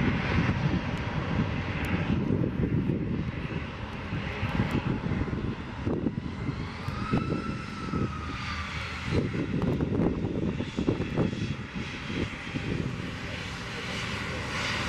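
Airbus A321 airliner taxiing past with its jet engines running at low taxi power, a steady jet rush that is louder at the start, dips in the middle and swells again near the end.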